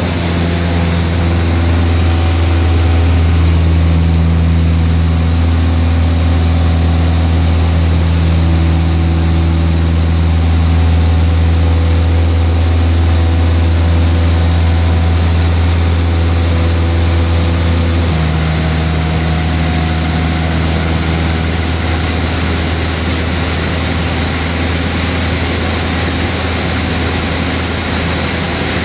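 Cessna Aerobat's piston engine and propeller running steadily in flight, heard from inside the cabin as a low, even drone. About two-thirds of the way through, the engine note shifts and eases slightly.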